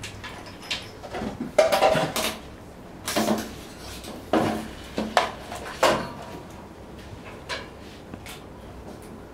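A run of irregular knocks and clatters of handling against a stainless-steel veterinary table, bunched between about one and six seconds in.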